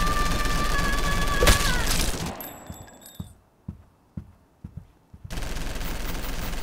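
Sustained automatic rifle fire from an AK-style rifle, a dubbed gunfire sound effect, with a sharp crack about one and a half seconds in. The fire dies away after about two seconds, leaving a lull with a few scattered knocks, then resumes near the end.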